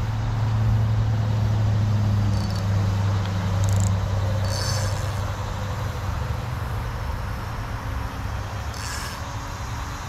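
Low, steady drone of a motor vehicle's engine, loudest in the first four seconds and fading after, with a few short high-pitched chirps.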